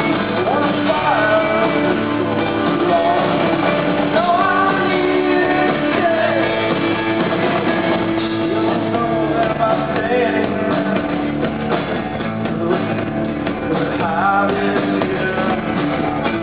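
Rock band playing live through a venue PA: electric guitars and drums with a sung lead vocal, loud and steady throughout.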